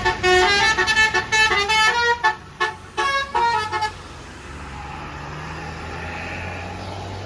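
Bus telolet horn, a multi-trumpet Basuri air horn, playing a fast tune in short stepped notes that stops about four seconds in. After it comes the bus's engine running with a low hum.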